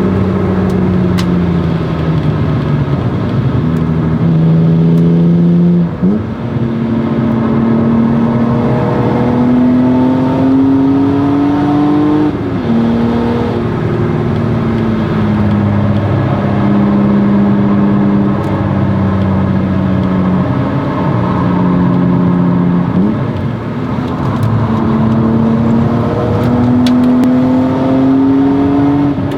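BMW E36 M3's 3.2-litre straight-six, through a Stromung cat-back exhaust, pulling hard on track: the engine note climbs steadily in pitch under acceleration, then falls away under braking, several times over. Brief sharp breaks in the note about six seconds in and again near 23 seconds come at gear changes.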